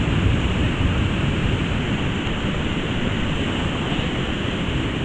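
Whitewater rapids of a river's falls section running at high flow, a loud, steady rushing noise heavy in the low end.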